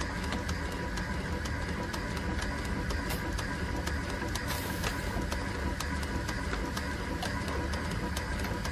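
Solenoid valves of a computer-controlled pneumatic mannequin arm clicking several times a second, letting air in and out of its silicone balloons as the arm moves, over a steady mechanical hiss and hum; a short burst of hiss about halfway through.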